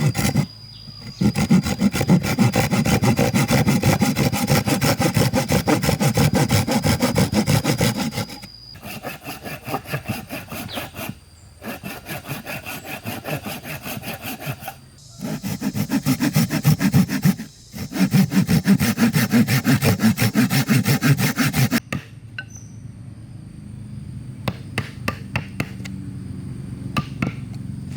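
Wood being sawn in several long bouts of quick, rasping strokes with short pauses between them. The sawing stops about 22 seconds in, leaving a few light taps.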